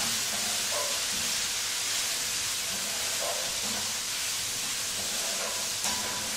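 Chicken strips and julienned vegetables sizzling in hot oil over medium-high heat, a steady high hiss, as they are tossed with a wooden spatula.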